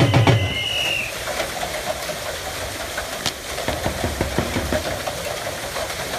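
Bull-driven Persian wheel (rahat) turning: its iron gearing and bucket wheel clatter and knock steadily and unevenly.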